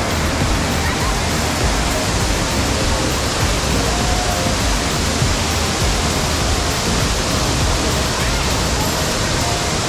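Waterfall, loud and steady: an unbroken rush of falling water.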